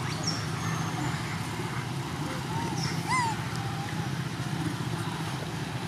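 Baby long-tailed macaque whimpering and squealing in several short, arched squeaky cries, the loudest about three seconds in, over a steady low hum.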